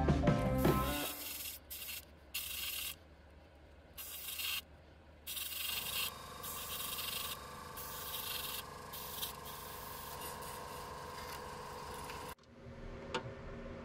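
Gravity-feed airbrush spraying paint: several short bursts of hissing air, then a longer steady hiss with a faint hum under it, cut off abruptly near the end.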